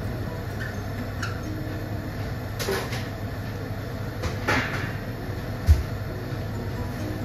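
Stainless steel pot of stew boiling on a gas burner with a steady low rumble. A metal ladle scrapes against the pot twice, followed by a single low thump.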